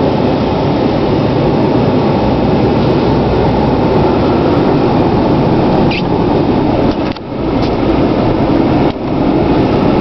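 Steady in-cab running noise of a 2011 Dodge Ram 3500 dually driving on snowy streets: the Cummins turbo-diesel engine together with tyre and road noise. The sound dips briefly about seven and nine seconds in.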